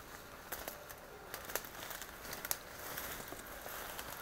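Faint rustling and crackling of dry fallen leaves and twigs underfoot, with a few sharp snaps scattered through it, as someone moves through the undergrowth.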